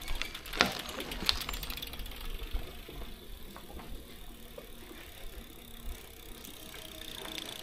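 Recumbent bicycle rolling along, its chain and frame rattling, with a few sharp clicks in the first second or two over a steady low rumble.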